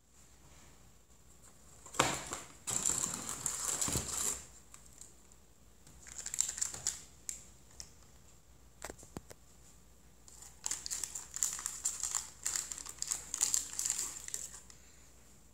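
Plastic wrapper of a sleeve of Ritz crackers crinkling as it is handled and torn open, in three spells of rustling: about two seconds in, around six seconds, and from about eleven to fourteen seconds.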